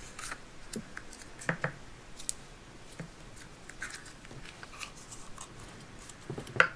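Hands handling Play-Doh modelling dough: faint scattered clicks and rustles as the dough is pulled from its plastic tub and kneaded, with a sharper tap near the end.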